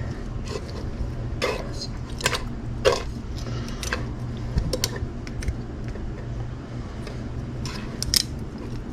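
Scattered light clicks and scrapes of kitchen utensils and hands working cooked possum meat as it is pulled off the bone and cut up, over a steady low hum.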